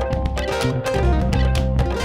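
Background music: an upbeat instrumental with plucked guitar, bass and percussion.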